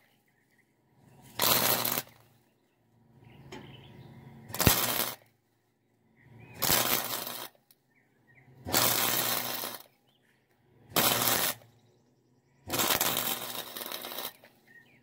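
Electric welder making a series of six short welding bursts, each about a second long with pauses between, as the old rivet holes in a sheet-steel toolbox are welded shut.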